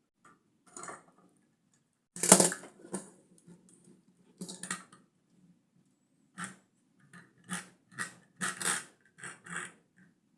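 Plastic LEGO pieces being handled: irregular clicks, knocks and rattles, the loudest knock about two seconds in and a run of them in the second half.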